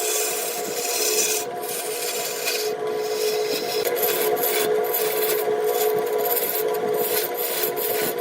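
Wood lathe running with a steady hum while a tool scrapes against the spinning wood in a dense, rasping hiss that lifts off briefly several times, more often in the second half.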